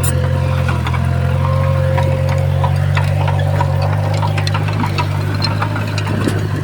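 Komatsu D20P bulldozer's diesel engine running steadily, with scattered light clicks and knocks.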